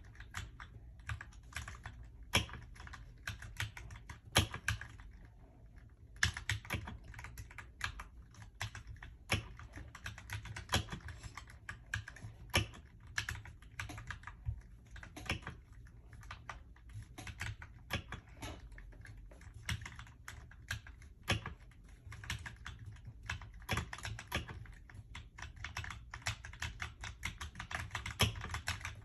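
Typing on a mechanical keyboard with Akko CS Rose Red linear switches (43 gf): a quick, irregular run of key clacks, with a short lull about five seconds in.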